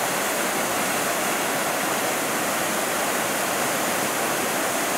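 Steady rushing of a waterfall about 7–8 m high falling into its pool.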